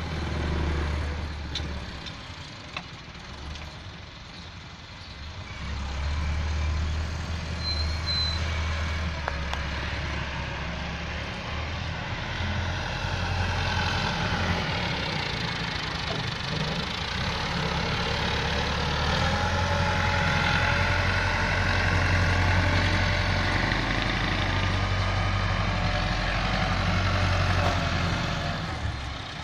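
Tractor diesel engine running under load as it drags a rear scraper blade (karah) through loose soil, fading somewhat a couple of seconds in and growing louder from about six seconds on. In the second half a whine rises and falls in pitch over the engine note.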